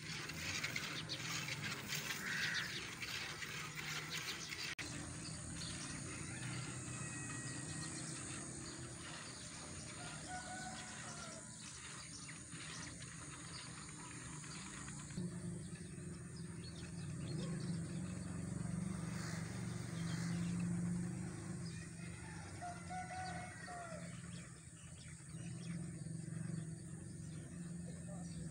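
A cow being hand-milked, milk squirting into a steel bucket in quick repeated strokes in the first few seconds, with birds chirping now and then.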